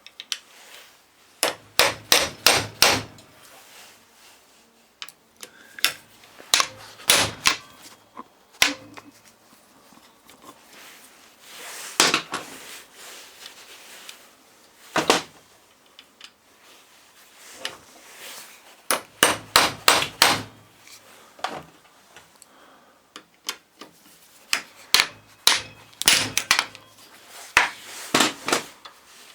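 Hammer knocking on a starter motor being dismantled: short bursts of quick blows, a few seconds apart, with single strikes in between.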